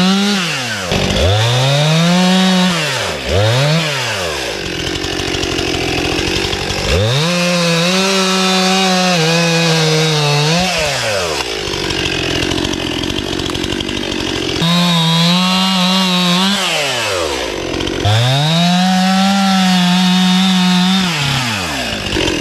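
Stihl two-stroke chainsaw at high revs, cutting through the trunk of a fallen tree. The engine drops briefly toward idle and revs back up several times. During two longer stretches, one about 4 seconds in and one near the middle, its clear tone turns into a rough rasp as the chain cuts into the wood.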